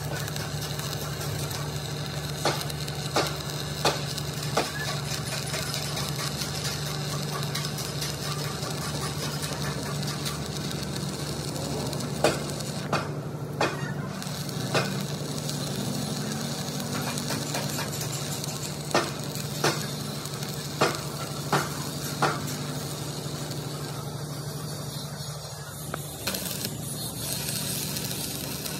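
Metal fabrication workshop noise: a steady machine hum under a crackly hiss, broken by sharp knocks in short runs of two to four, a little under a second apart.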